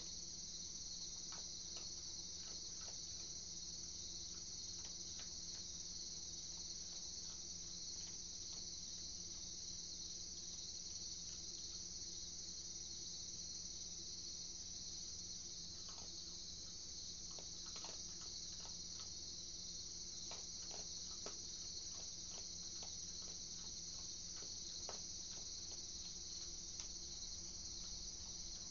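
Steady high-pitched chorus of night insects, crickets, with faint scattered clicks and a low steady hum underneath.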